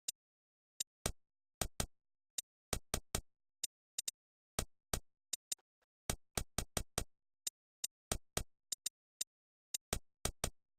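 A run of irregular sharp clicks, about three a second and some in quick pairs, each cut off short against dead silence; no snoring or breathing is heard.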